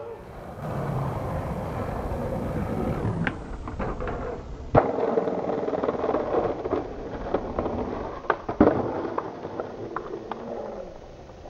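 Skateboard wheels rolling over pavement, with a few sharp clacks of the board being popped and landing: the loudest about five seconds in and twice more near eight and a half seconds.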